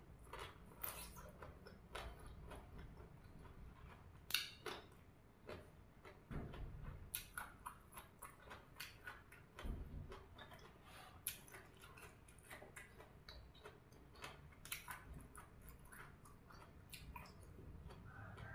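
A person chewing raw vegetables: faint, irregular crisp crunches and small mouth clicks, with one louder crunch about four seconds in.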